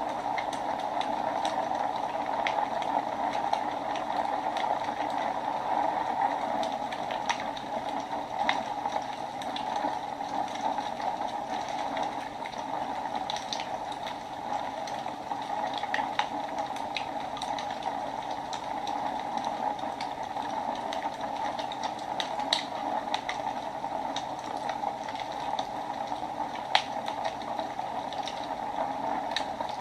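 Wood fire burning in a fireplace: a steady hiss with irregular sharp crackles and pops scattered through it, a couple of them louder than the rest.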